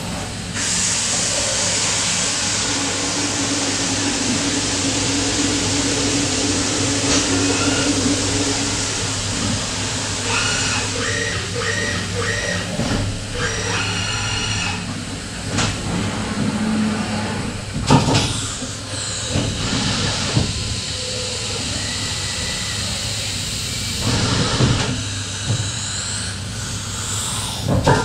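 Mazak five-axis horizontal machining center running with its enclosure flooded by coolant: a steady hiss of spraying coolant over a low machine hum. Short whines come and go as the axes and trunnion table move, with sudden louder swishes and sweeping whines about two-thirds of the way through and near the end.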